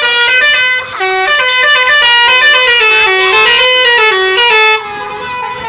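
Basuri telolet bus horn playing a fast tune of stepped, horn-like notes, which stops nearly five seconds in and leaves a quieter held tone.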